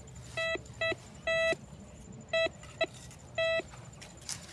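Metal detector beeping as it is swept over the ground: six short beeps at uneven intervals, all on the same tone, one a little longer than the rest.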